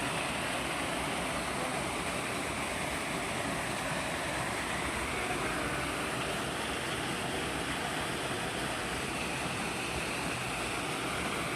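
Running water, a steady unbroken rushing hiss.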